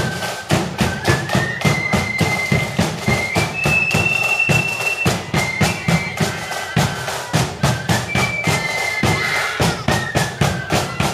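Marching band playing a tune: one high melody line of held notes from the wind instruments over rapid, steady drum strokes.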